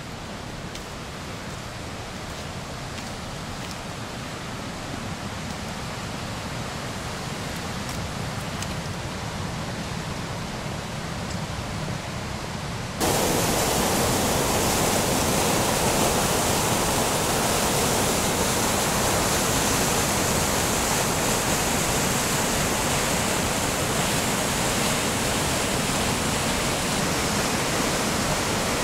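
The River Dee's white water rushing through a narrow rock gorge: a steady rushing that slowly grows louder, then jumps abruptly louder about halfway through and holds steady.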